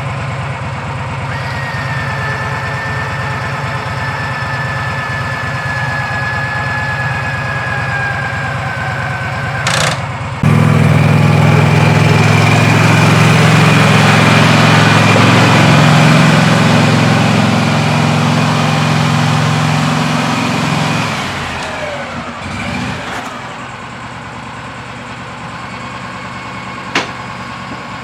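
A vehicle engine idling. About ten seconds in, a much louder steady running sound comes in for about ten seconds, then drops back to the idle. A sharp click comes near the end.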